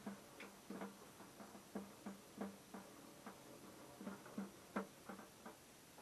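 Faint, irregular light clicks and taps, one to three a second.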